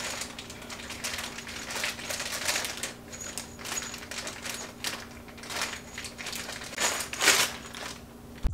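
Small clear plastic bag of furniture assembly hardware crinkling as it is handled and opened, with the small metal and plastic parts inside clicking and rattling against each other in irregular bursts.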